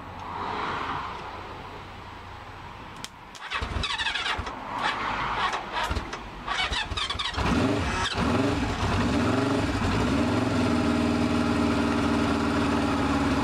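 Honda CB500 Four's air-cooled inline four-cylinder engine being started: about three and a half seconds in it cranks and sputters unevenly for a few seconds. Just past seven seconds it catches and settles into a steady idle.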